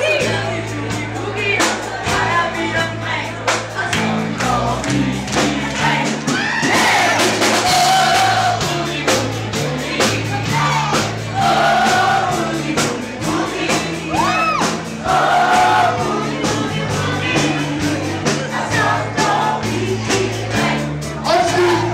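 Live band playing a boogie-woogie at full volume, a bass line stepping between notes about twice a second under singing voices.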